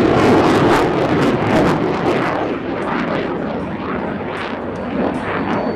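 F-16 fighter jet's engine noise passing overhead: a loud, rushing noise with a crackling edge that loses its high end about two seconds in and then fades steadily as the jet moves away.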